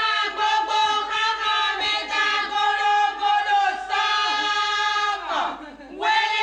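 A high-pitched voice crying out in long, drawn-out, wavering tones, with one tone held steady for about a second before a falling slide and a short dip near the end.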